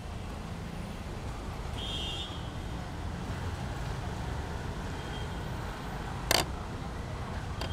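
Steady low rumble of street traffic, with one short sharp click about six seconds in.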